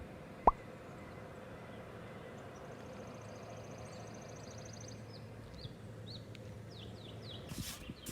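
Faint outdoor ambience with songbirds: a thin, high, rapid trill lasting about two and a half seconds, then several short high chirps. A single sharp click comes about half a second in.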